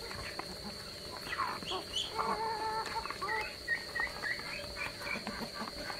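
Mixed flock of chickens, Muscovy ducks and geese feeding from a bowl of rice: a jumble of clucks and short calls over pecking and scuffling. A longer drawn-out call comes about two seconds in, followed by a run of short high calls.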